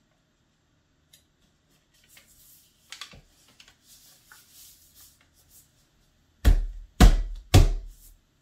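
Paper race bib rustling faintly as it is pinned to a wall, then three loud thumps about half a second apart as an open palm pats it flat against the wall.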